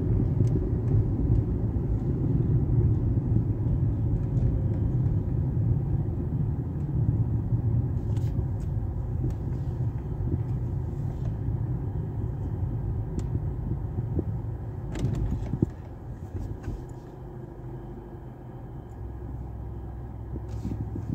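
Car cabin noise while driving slowly: a steady low rumble of engine and tyres that quietens about three-quarters of the way through as the car comes to a stop in a queue, with a sharp knock just before it quietens.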